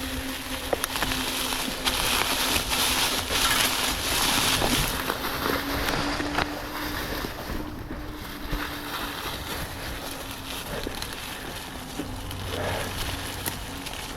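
Mountain bike riding up a dirt trail: wind on the microphone and tyre and drivetrain noise, loudest for a few seconds early in the climb, over a steady low hum.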